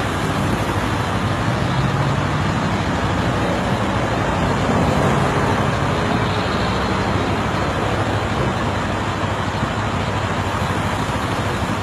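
Steady road traffic noise, with vehicle engines running nearby as a low, even hum.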